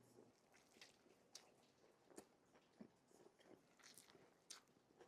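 Faint, scattered wet clicks and smacks of a mouth chewing a cheeseburger.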